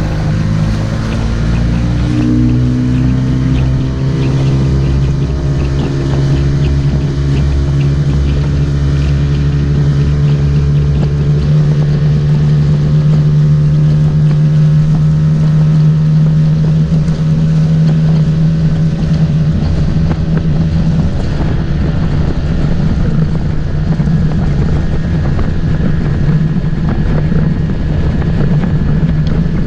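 Motorboat engine speeding up over the first few seconds, its pitch rising, then running steadily at cruising speed, with wind on the microphone.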